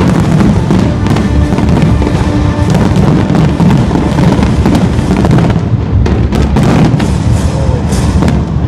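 Loud aerial fireworks display: a dense, unbroken run of booms, with sharp crackles coming thicker in the second half, and music playing underneath.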